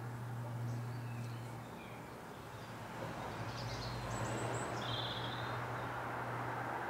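Outdoor garden ambience: a steady low hum over a background hiss, with brief high bird chirps around the middle.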